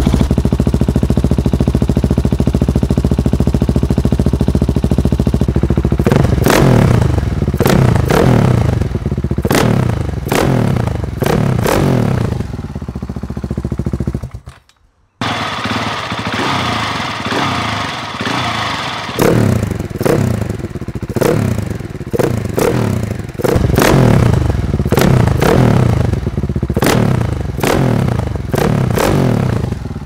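KTM 690 single-cylinder engine idling, then blipped repeatedly with short throttle stabs, through a Tekmo titanium header and an Arrow titanium end can. The bike is cold, so it is not revved hard. After a brief break halfway through, a single-cylinder motorcycle with an Akrapovic exhaust is heard idling and being blipped in quick succession.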